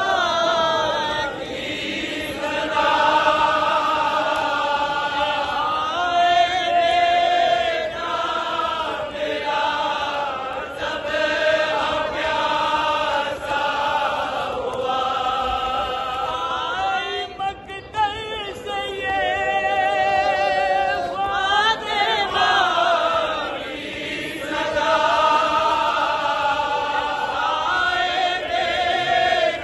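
Group of men chanting a devotional Urdu verse together in a slow, wavering melody, phrase after phrase with short breaks between lines.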